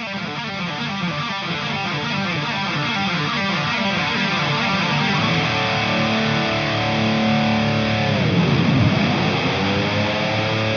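Electric guitar played through a Marshall Jackhammer distortion pedal, giving a heavy overdriven tone. Quick picked notes move into held, ringing chords about halfway, with a sweeping swirl through the chords about two-thirds of the way in.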